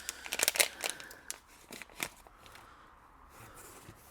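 Packaging being handled and unwrapped: a run of crinkles and clicks in the first two seconds or so, then only faint rustling.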